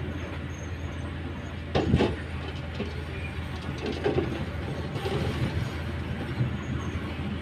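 Komatsu hydraulic excavator's diesel engine running steadily as it loads soil into a dump truck, with a loud thud about two seconds in and lighter knocks and rattles a couple of seconds later.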